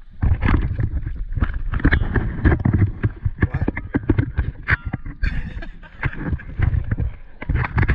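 Muffled underwater noise picked up through a diving camera's waterproof housing: a steady low rumble with a dense run of irregular clicks and knocks.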